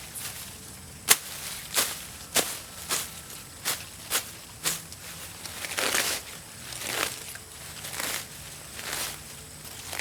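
Footsteps crunching on dry ground: a run of sharp crunches about every half second, then softer, longer crunching and rustling about once a second.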